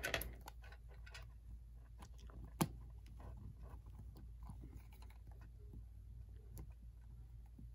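Faint clicks and light taps of small model-train parts being handled and set down on a workbench, with one sharper click about two and a half seconds in, over a steady low hum.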